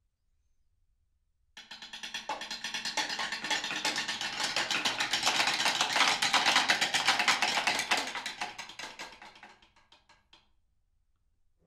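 A snare drum ensemble playing a dense, rapid stream of strokes. It enters suddenly about a second and a half in, swells to a loud peak, then dies away to silence shortly before the end.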